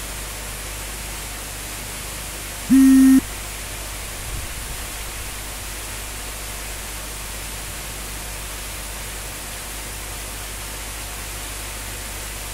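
Steady rushing hiss of water churning in an aerated biofloc shrimp pond, with air bubbling up from the aeration lines as the pond is topped up with water. About three seconds in, a loud steady beep-like tone sounds for about half a second.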